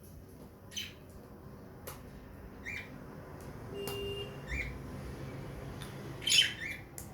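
Pet budgerigars (parakeets) giving short, scattered chirps and squawks, with a louder burst of calls near the end.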